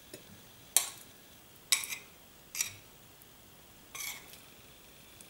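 A spoon tapping against a ceramic plate and dish as white farmer's cheese is dolloped onto pasta: a handful of sharp clinks, about one a second, one of them a quick double tap.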